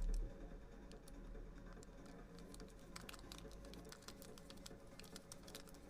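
Faint, irregular small clicks and ticks of a screwdriver driving the screws into an airsoft magazine, with a low bump of handling at the start.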